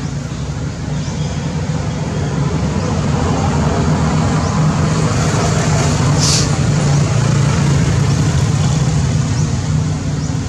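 A steady low engine rumble, swelling a little in the middle, with a brief high hiss about six seconds in.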